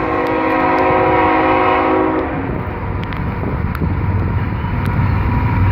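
Freight locomotive's air horn sounding a chord of several tones, cutting off about two seconds in, followed by the low rumble of the diesel locomotives passing, growing louder near the end.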